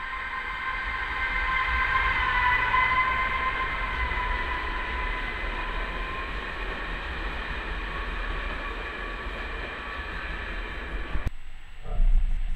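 Czech Railways class 854 diesel railcar running past along the platform with its train of carriages: a steady rumble with a whine of several tones that sinks slightly in pitch. The sound cuts off abruptly near the end, followed by a brief low rumble.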